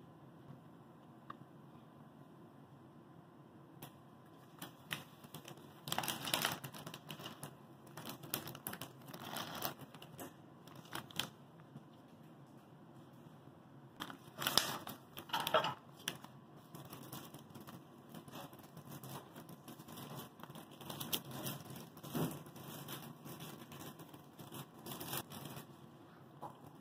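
Clear plastic snack packaging crinkling and rustling in several irregular bursts as a wrapped pack of mochi is handled and opened.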